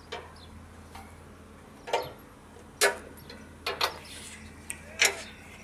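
Sharp metal clicks of a spanner working a hydraulic hose fitting on a backhoe boom, about six of them at uneven intervals, with a low steady hum underneath.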